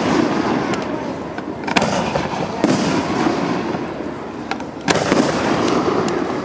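Aerial fireworks bursting overhead: a string of sharp bangs, about one to two seconds apart, each trailing off in a rolling rumble that fills the gaps between them.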